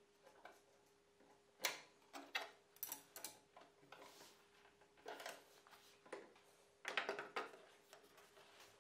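Irregular metal clinks and clanks of two flat wrenches on a table saw's arbor nut and blade as the blade is changed by hand. The loudest cluster, near the end, comes as a wooden throat insert is set into the saw table.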